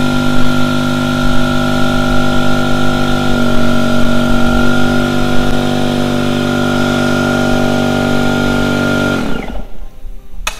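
Red pancake air compressor running loudly with a steady whine, rated at about 90 decibels. It stops about nine seconds in, its pitch falling as it spins down, and a sharp click follows near the end.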